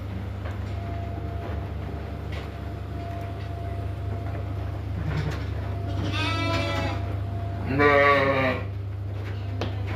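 Two sheep bleating, one about six seconds in and a louder one about eight seconds in, over a steady low hum.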